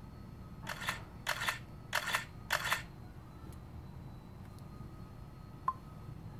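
Tablet camera app's simulated shutter sound, played four times in quick succession through the Xiaomi Mi Pad's speaker as photos are taken. A single short click comes near the end.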